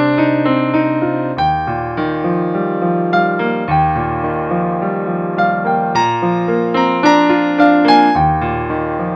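An 88-key digital piano playing a flowing piece, recorded directly from the instrument's output: melody and chord notes over sustained low bass notes that change about every two seconds.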